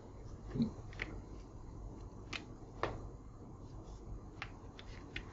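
A few faint clicks and taps from a whiteboard marker drawing a tick mark on the board, over quiet room tone, with a short low thump about half a second in.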